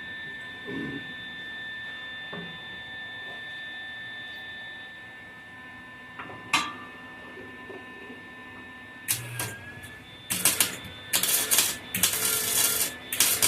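A steady electrical hum with one sharp click, then, from about nine seconds in, a run of short, loud, irregular crackling bursts typical of MIG tack welding.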